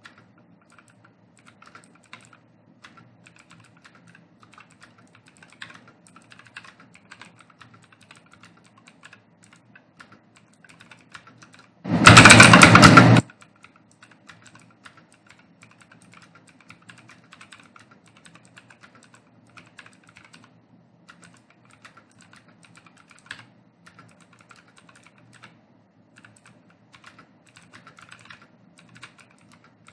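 Fast touch-typing on a computer keyboard: a rapid, uneven run of key clicks with brief pauses. A little before halfway, a loud harsh burst of noise lasting about a second cuts across it.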